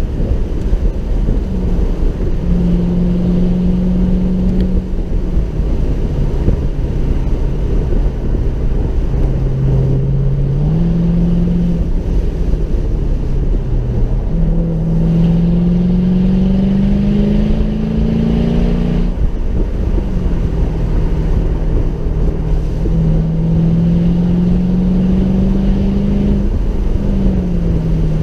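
Mercedes SLK 55 AMG's V8 engine driving along a country road, its note climbing steadily in pitch several times and dropping back, as with accelerating and lifting off or changing gear. A steady road and tyre rumble lies under it, heard from inside the cabin.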